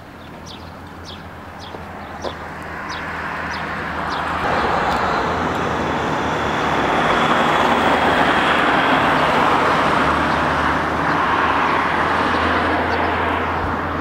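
A road vehicle passing: a steady rush of tyres and engine that swells over several seconds and fades again near the end, with birds chirping during the first few seconds.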